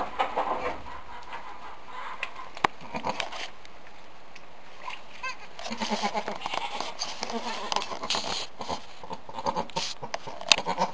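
Goats calling: a doe and her newborn twin kids, with repeated short calls, mostly in the second half. A sharp click comes about two and a half seconds in and another near the end.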